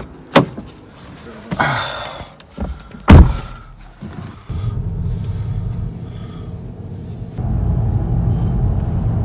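A car door knocks, then slams shut about three seconds in. About a second later the car's engine starts and runs with a steady low rumble, getting louder near the end as the car pulls away.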